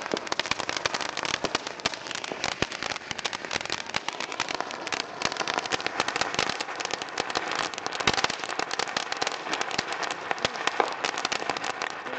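Ground fountain firework spraying sparks with a dense, continuous crackle of many tiny pops that keeps up steadily throughout.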